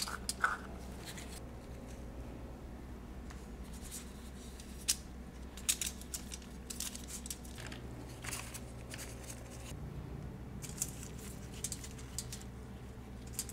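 Quiet kitchen handling: scattered light clicks, scrapes and crinkles from working with foil and a baking tray, over a faint steady hum.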